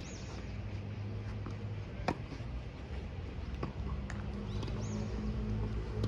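Outdoor tennis-court ambience: a steady low hum, a single sharp knock about two seconds in and a fainter one later, and a bird's short, high arching chirp near the start and again near five seconds.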